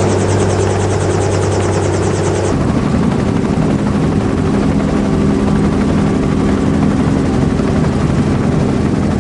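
Helicopter engine and rotor running loud and steady, heard from inside the cabin. The sound changes abruptly about two and a half seconds in, a fast regular high pulsing dropping out.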